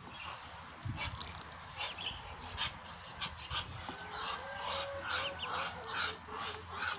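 Muscovy ducklings peeping, many short high peeps overlapping one another in quick succession.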